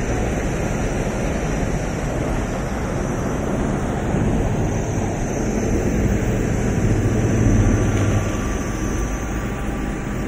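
Heavy wood-grinding machinery running steadily: a constant low rumble with a faint high whine, swelling slightly about seven seconds in.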